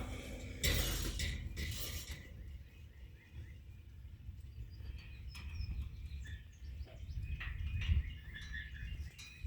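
Small birds chirping faintly and intermittently in the background, after a couple of seconds of rustling noise at the start.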